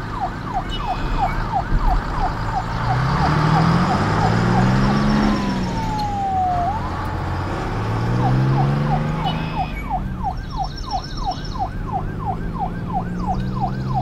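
Police siren in a fast yelp, about three rising-and-falling sweeps a second, broken near the middle by one slow falling wail before the yelp starts again. A low engine-like revving rises and falls beneath it.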